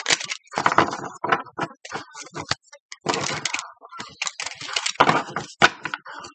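A deck of cards being shuffled and handled by hand: an irregular run of card snaps, flicks and rustles.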